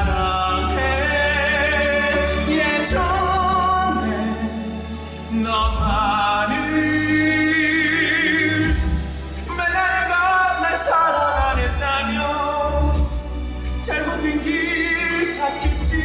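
Musical-theatre singing over instrumental accompaniment, with long held notes sung with vibrato.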